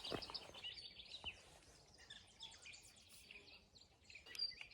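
Faint outdoor background with small birds chirping: a quick run of short, high, repeated chirps in the first second, then scattered calls.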